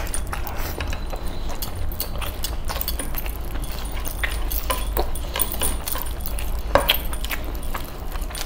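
Close-up eating by hand: fingers squelching and scraping through chicken masala gravy on a plate, with chewing and many small clicks, and heavy silver chain bracelets and rings jingling. One louder click comes about two-thirds of the way through, over a low steady hum.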